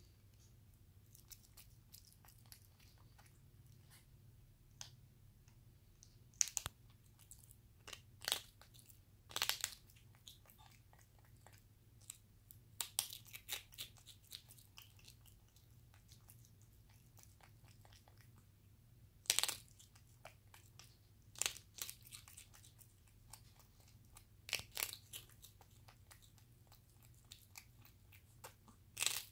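Capuchin monkey biting and chewing a hard, dry monkey biscuit: sharp crunches come every few seconds at an uneven pace, with quieter chewing in between.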